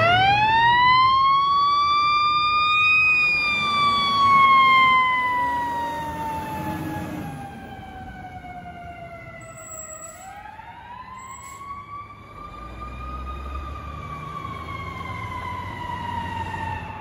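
Aerial ladder fire truck's siren winding up to a high wail, then slowly sliding down in pitch; about ten seconds in it winds up again and slides down once more. It grows fainter as the truck drives away.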